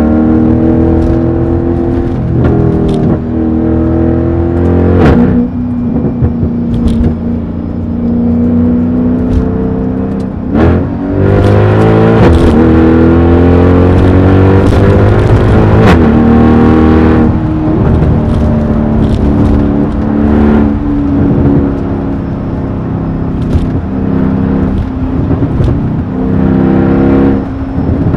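Mercedes-AMG E63's V8 with a loud exhaust, accelerating hard through the gears. The pitch climbs and then falls sharply at each upshift, with sharp exhaust cracks at the shifts. Near the middle there is one long pull lasting about six seconds, after which the engine settles into a steadier cruise before climbing again near the end.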